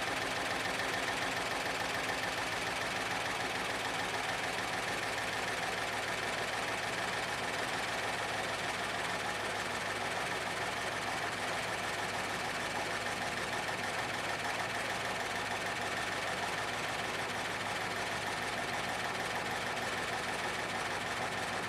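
Ford 534 cubic-inch Super Duty V8 idling steadily. It is running with one cylinder on the right bank completely dead and another running weak.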